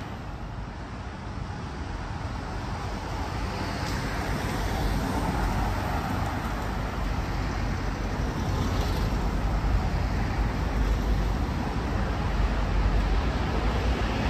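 Road traffic on a city street: cars and vans driving past with a steady rumble of engines and tyres, growing louder over the first several seconds.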